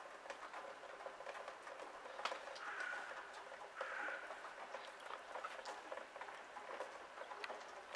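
A bird calls twice, two short calls about a second apart, over a faint steady outdoor hiss with scattered light ticks.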